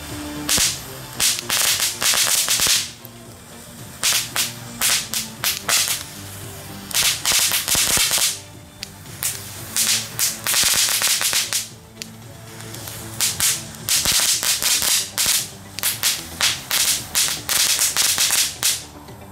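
Lesli DJ Cracker F1 fireworks going off on the ground one after another, in bursts of rapid, sharp crackling with short lulls between.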